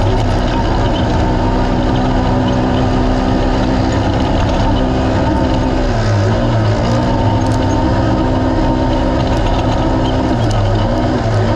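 Naturally aspirated race UTV engine running at high revs in a steady, loud drone, its pitch dipping briefly about six seconds in and again near the end.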